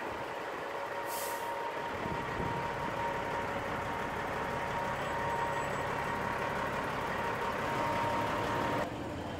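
Heavy diesel engines of a crane and semi trucks running steadily, with a thin steady whine and a short burst of air hiss about a second in. The noise drops off abruptly near the end.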